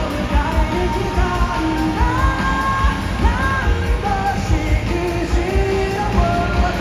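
Live pop-rock band playing at full level, with a sung melody over a steady, heavy kick drum, recorded from within the concert audience.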